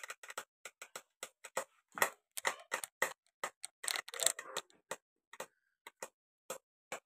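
Beyblade spinning tops battling inside a plastic bucket: a quick, irregular series of sharp clicks and knocks as they strike each other and the bucket's plastic wall.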